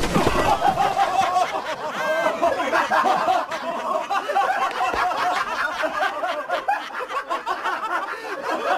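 A group of people laughing together, many voices overlapping without a break.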